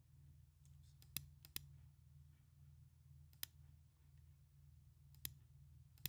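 Faint computer mouse clicks, about five, spaced irregularly, over a low steady hum.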